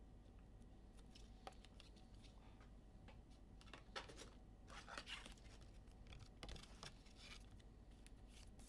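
Faint handling of trading cards and their packaging on a table: a few short scrapes, clicks and rustles, most of them around four to five seconds in, over a low steady room hum.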